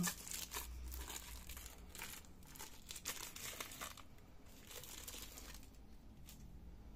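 Thin plastic crinkling and rustling as a new fuser film sleeve is taken out and handled in gloved hands, busiest in the first four seconds and then sparser.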